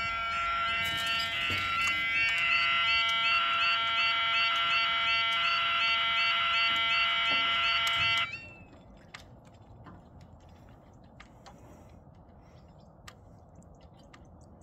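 Level crossing yodalarm warning alarms sounding together, a repeating warble with steady tones under it; one of the alarms is faulty and gives a strange-sounding tone. The alarm cuts off suddenly about eight seconds in.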